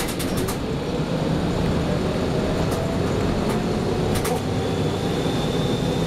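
A 1994 TMC RTS transit bus under way, heard from inside the passenger cabin: the Detroit Diesel Series 50 engine and Allison transmission drone steadily, their pitch rising slowly as the bus gathers speed. A few sharp rattling clicks come and go, and a thin high whine comes in near the end.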